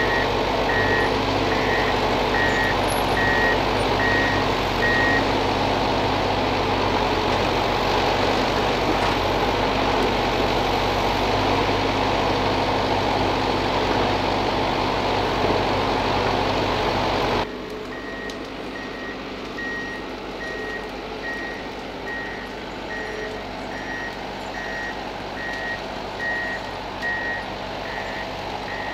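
Ponsse forestry machine running steadily, its engine and hydraulics under way, with a warning beeper sounding in a regular pattern of about one and a half beeps a second. The beeping stops about five seconds in; at about 17 seconds the whole sound drops suddenly and the beeping starts again.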